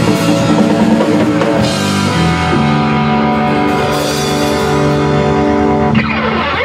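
Live rock band of drum kit, electric bass and electric guitar playing the last bars of a song: drum hits for about two seconds, then a final chord held and ringing out steadily, with a sliding sweep in pitch near the end.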